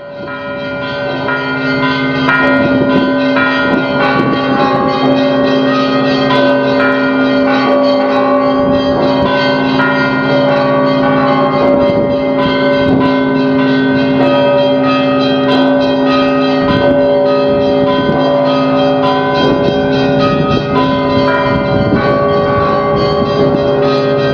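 Bells of the Orthodox Alexander Nevsky Cathedral in Sofia ringing: many bells of different pitches struck in quick, overlapping succession over the steady hum of the deeper bells. The sound fades in at the start.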